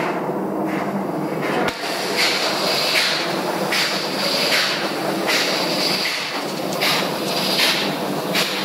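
Loud, steady ship's engine-room machinery noise with a regular pulse about once every three-quarters of a second, and a single sharp click a little under two seconds in.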